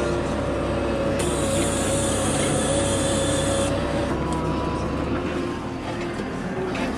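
New Holland M100 tractor engine running steadily under load while pulling a plough. A high hiss joins for about two and a half seconds, starting about a second in.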